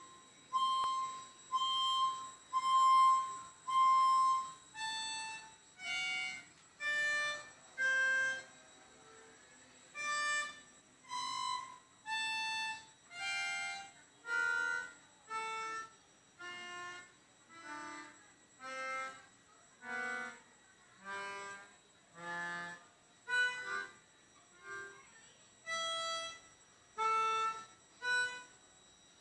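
Background music: a slow melody of single held notes, about one a second, each followed by a short gap.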